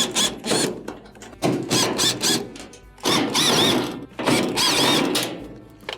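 A power screwdriver runs in four or five short spurts of about a second each, backing screws out of a washing machine's sheet-metal back cover plate.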